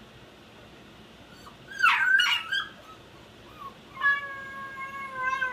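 Shiba Inu puppy crying in its crate: a burst of sharp, wavering yelps about two seconds in, then a long high whine from about four seconds that drops in pitch at the end. The puppy is protesting confinement during crate training.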